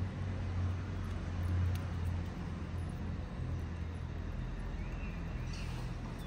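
A steady low engine hum, like a motor vehicle running, loudest for the first two seconds, with a faint high chirp about five seconds in.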